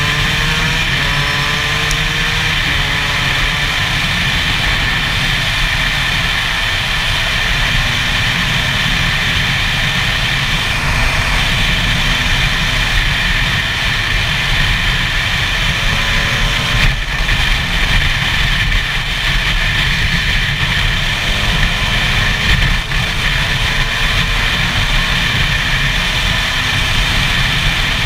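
Gas Gas EC SMR 125 single-cylinder two-stroke engine running at a mostly steady pitch as the bike cruises on the road, with the revs rising slightly about three quarters of the way in. Wind rush on a helmet-mounted microphone.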